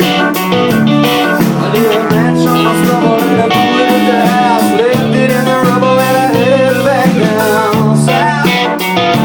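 Guitar music played live, with a melody line that bends up and down in pitch over steady chords.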